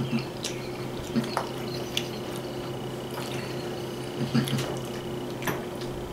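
Metal forks clinking and scraping against bowls as two people eat, several sharp clinks spread through, over a steady low hum.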